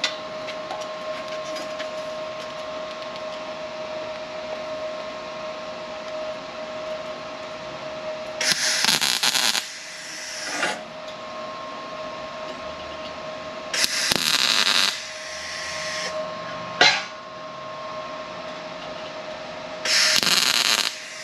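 Three short tack welds, each about a second of welding crackle, fixing a V-band clamp onto an exhaust pipe. They come about a third of the way in, just past halfway, and near the end. A steady hum runs underneath, with a single sharp click between the second and third welds.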